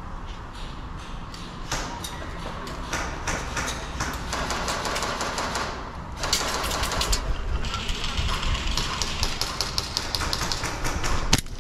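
Airsoft guns firing in rapid full-auto bursts, a fast clatter of shots that grows louder and denser about halfway through.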